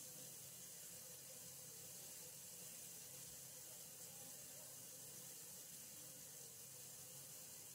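Faint, steady hiss of water running through water pipes, left running to prevent freeze damage.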